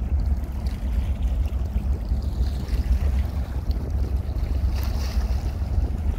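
Wind buffeting the microphone, a steady low rumble that swells and dips, with a faint hiss above it.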